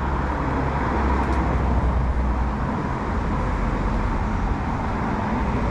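Road traffic noise: a steady hiss of passing vehicles with a low rumble that eases off about halfway through.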